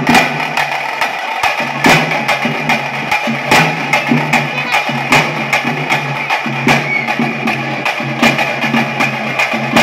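Tase drums and a barrel drum beaten with sticks in the fast, driving pili vesha rhythm, sharp strikes several times a second with heavier accented beats.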